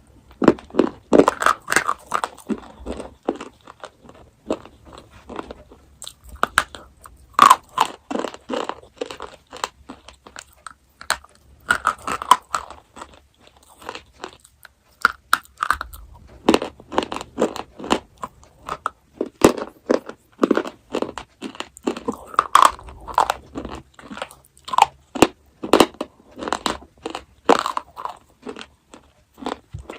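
Close-miked crunching and chewing of chocolate, in runs of sharp crackly bites and chews broken by short pauses.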